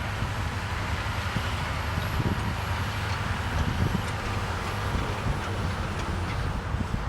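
Steady traffic rumble with wind noise on the microphone.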